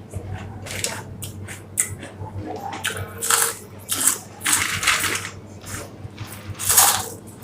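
Kurkure (crunchy corn snack) being chewed quickly, an uneven run of crunches several times a second.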